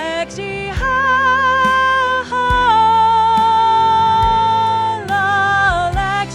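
A voice singing a melody with vibrato over music with low drum hits, holding one long note in the middle.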